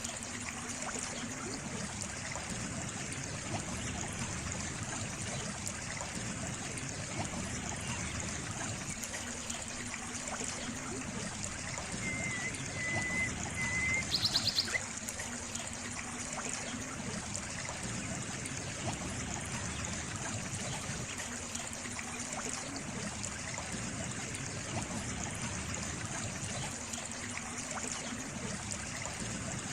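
Water trickling and running steadily, as in a small stream. About halfway through there is a thin faint whistle, then a brief quick high rattle.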